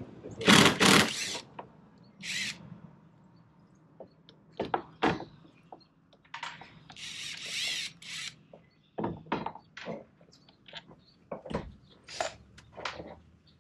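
Cordless drill backing screws out of a PVC splash rail on a boat hull, running in short bursts: the loudest in the first second, a brief one around two seconds in, and a longer one of nearly two seconds in the middle. Scattered knocks and clicks come between the bursts.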